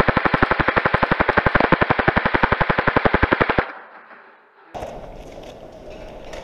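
Airsoft electric gun firing one long full-auto burst of rapid, evenly spaced shots that stops suddenly about three and a half seconds in. Quieter handling and rustling noise follows about a second later.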